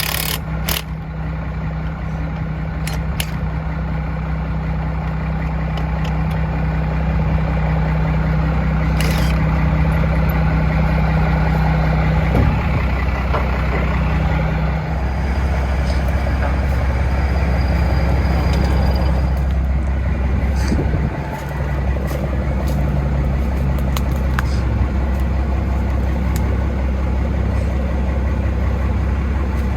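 A vehicle engine running steadily at idle, its pitch shifting slightly about halfway through, with a few scattered clicks and knocks over it.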